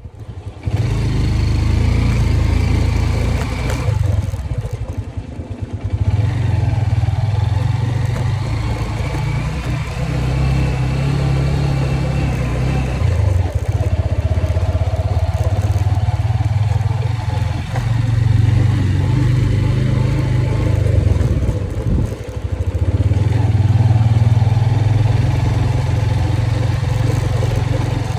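Motorcycle engine running while riding, a loud steady rumble that cuts in abruptly about a second in.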